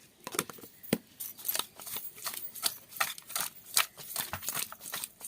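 Irregular run of sharp clicks and scrapes, a few a second, from kitchen work on fish.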